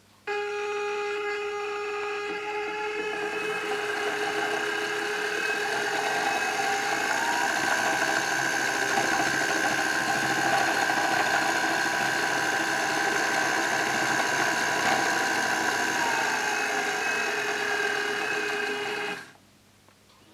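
Electric Eel Wheel 4 electric spinning wheel running: a steady motor whine with the whir of the spinning flyer, switching on abruptly and growing louder over the first few seconds. One tone glides up about a third of the way in and back down near the end, and the sound cuts off suddenly about a second before the end as the wheel is switched off.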